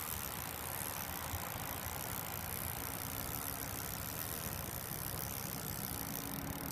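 Wind rumbling steadily on the phone's microphone over a light hiss of rain. A faint steady hum comes and goes underneath.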